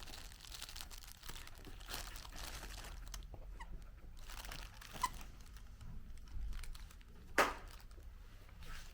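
Faint crinkling and rustling of a dog's crinkle toy being played with, with one sharp knock about seven seconds in.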